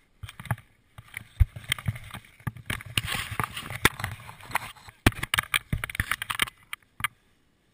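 Close rustling of parachute nylon, suspension lines and wingsuit fabric being gathered up by hand, with many sharp knocks and clicks, thinning out about a second before the end.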